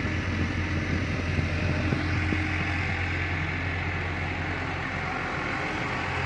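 Fiat-Hitachi FH150.3 excavator's diesel engine running at a steady pitch.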